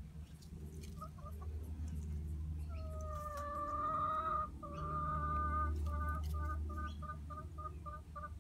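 Domestic chicken calling: a few short clucks, then two long drawn-out calls, then a quick run of short clucks at about four a second.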